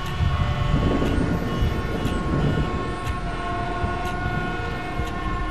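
A sustained droning chord of several steady held tones from the film's background score, over a low rumble of city street traffic.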